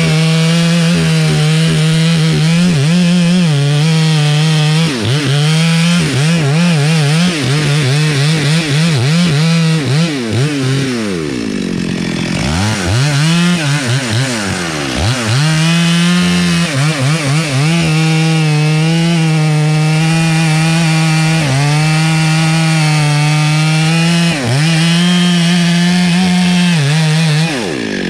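Stihl MS 382 two-stroke chainsaw running at full throttle as its chain cuts into a thick rain tree trunk. About halfway through, the engine pitch drops and then climbs back into the cut, with a few brief dips later on.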